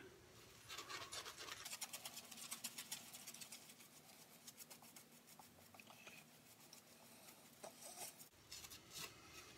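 Faint, rapid, scratchy swishing of a silvertip badger shaving brush working lather over the face, busiest in the first few seconds and thinning out after that.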